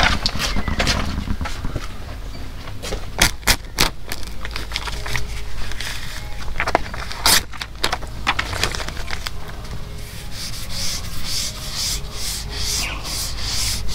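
Vinyl registration-number decals being rubbed down onto a boat's hull with an applicator squeegee. A few separate scrapes come first, then quick repeated rubbing strokes from about ten seconds in.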